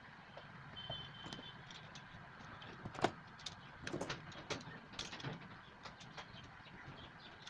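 Scattered light clicks and taps from copper strips and tools being handled on a plastic battery-cell holder, the sharpest about three seconds in and a run of them a second later, over a steady faint background noise.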